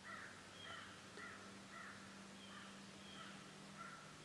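A bird calling over and over in short, evenly repeated calls, about seven of them, faint and distant, with a steady low hum underneath.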